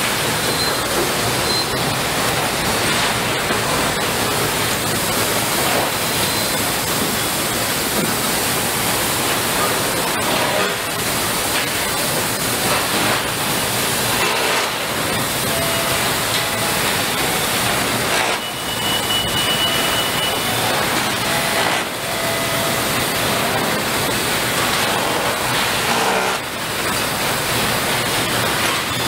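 Steady din of a car assembly line: a constant hiss-like roar of factory machinery and air, with a brief high tone a little past the middle.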